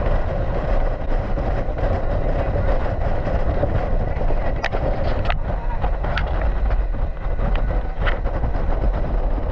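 Motorboat running steadily, a loud low rumble with wind and water noise over it, and a few sharp knocks in the second half.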